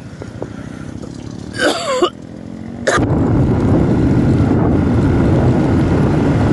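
Motorcycle running with wind on the microphone, heard from a camera on the bike. It is fairly quiet at first, with a brief voice-like sound partway through. After a sharp click about three seconds in, the engine and wind noise become much louder and stay steady.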